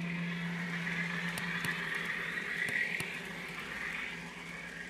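N scale FPA-4 diesel locomotive model running with its onboard sound decoder playing diesel engine sound through a tiny speaker. There is a steady low hum and a few light clicks as the train rolls along.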